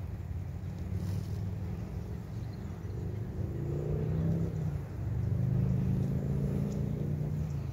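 Low engine hum over a steady low rumble, swelling a few seconds in and easing off near the end, like a motor vehicle passing out of sight.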